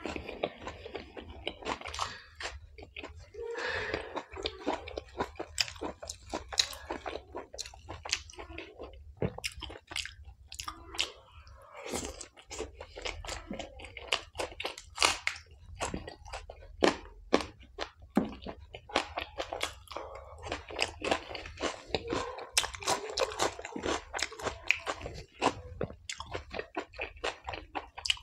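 Close-miked chewing and biting of chole bhature (fried bread with chickpea curry) and raw green chilli: a dense, irregular run of wet smacks and sharp crunches.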